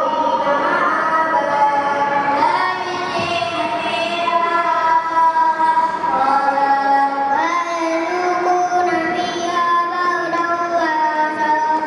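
Children singing a melody in long held notes that step from one pitch to the next, without a beat behind them.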